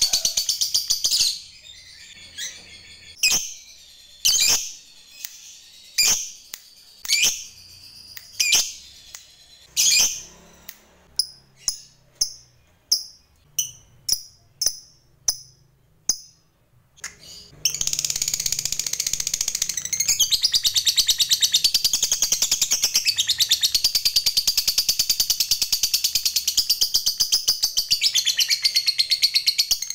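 Lovebird calling: separate sharp, high chirps that come faster and faster, then, about eighteen seconds in, a long unbroken rapid chattering trill, the 'ngekek' that lovebird keepers prize.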